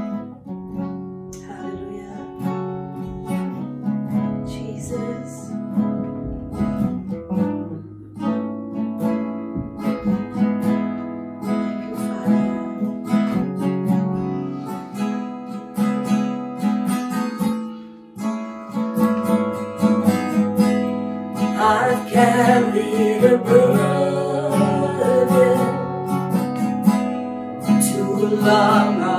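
Acoustic guitar strummed in a slow worship accompaniment. About twenty seconds in, a woman begins singing over it.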